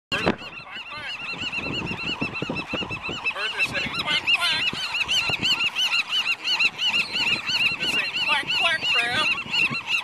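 A flock of waterbirds calling without a break: a dense chorus of short rising-and-falling calls, several a second.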